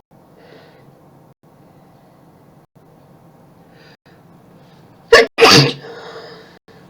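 A person sneezing loudly about five seconds in: a sharp short burst, then a longer one a moment later, trailing off into a breathy exhale.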